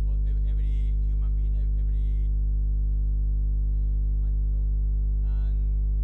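Loud, steady electrical mains hum with a buzzing ladder of overtones, drowning faint, muffled speech beneath it: a fault in the recording's audio feed.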